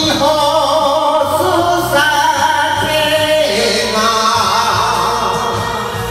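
A man singing an enka song into a karaoke microphone over the karaoke backing track, holding long, wavering notes.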